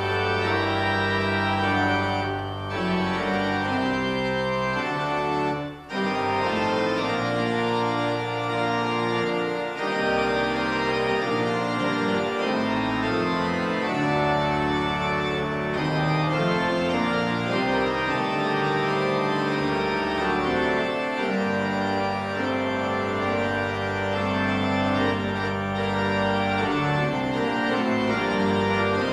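Organ postlude closing a church service: sustained chords over long held bass notes, changing every second or two, with a brief break about six seconds in.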